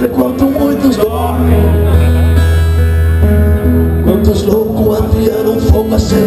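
Live rock band playing loud through a PA: guitars over a steady low bass line and drums, with a man singing.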